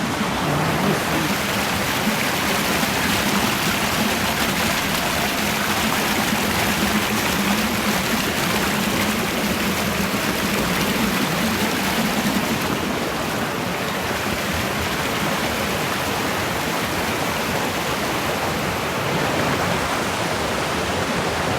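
Mountain stream rushing steadily, a continuous flowing-water noise.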